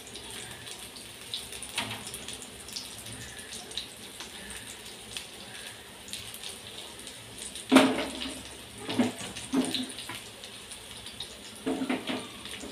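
Chicken seekh kebabs sizzling in hot oil in a frying pan: a steady crackling sizzle with small pops, and a few louder short bumps in the second half.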